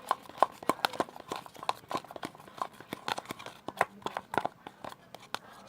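Homemade slime being stirred in a pot, giving rapid irregular sticky clicks, several a second; the slime is nearly at the right consistency after a few drops of activator.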